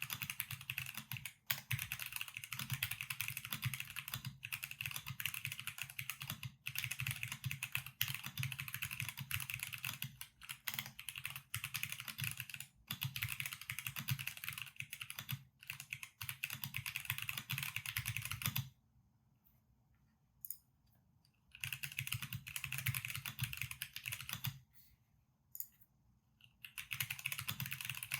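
Typing on a CMM.Studio Returned Wing custom mechanical keyboard with factory-lubed CMM.Studio x Gateron Limbo switches, a 5 mm polycarbonate plate and GeekArk PBT keycaps: dense runs of keystrokes broken by two pauses of two to three seconds, the first about two-thirds of the way through, the second holding a few single keystrokes.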